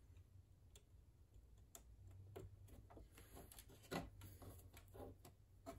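Near silence with a handful of faint, short clicks and taps as small wire connectors are handled and plugged back onto a sewing machine's circuit board; the clearest click comes about four seconds in.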